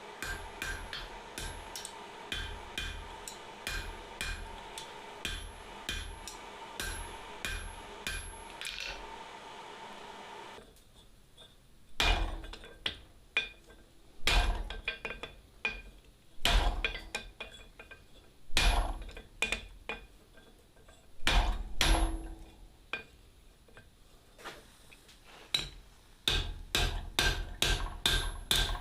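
Blacksmith's hammer striking steel on an anvil. First a run of light, quick taps, about two a second, over a steady hum; then, after a sudden change, heavy single blows about every two seconds, and a fast run of blows near the end.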